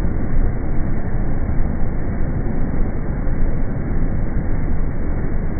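Large pool-hall circulation fans running with a steady, loud rush of moving air, deepest in the low end.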